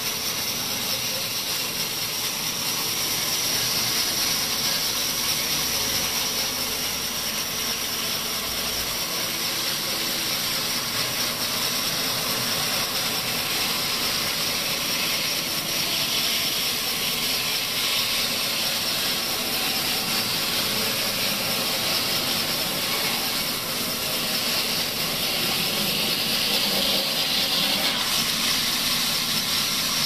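Band sawmill running, its blade ripping lengthwise through a log: a steady, loud hiss of the cut over the hum of the machine.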